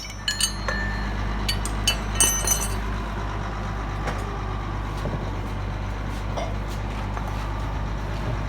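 A heavy engine running steadily at idle, with a low hum that cuts in suddenly at the start. Metal parts clink and click several times over the first three seconds or so.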